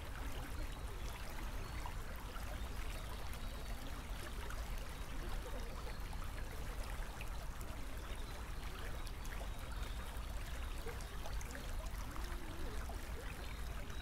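Steady trickling of a small stream, with a low, even rumble underneath.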